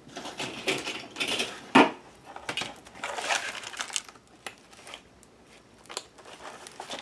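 Stack of loose book pages rustling as they are handled and squared up, with sharp clicks and clacks of metal binder clips being put on to clamp them together.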